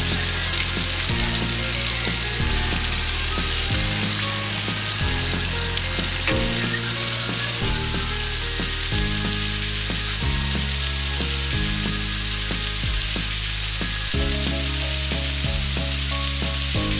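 Flour-coated chicken pieces deep-frying in a wok of hot oil: a steady, busy sizzle of bubbling oil, heard over background music with a stepping bass line.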